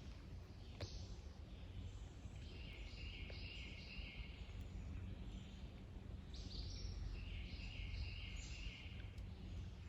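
A songbird singing two phrases of quickly repeated notes, the second a few seconds after the first, over a faint steady outdoor background.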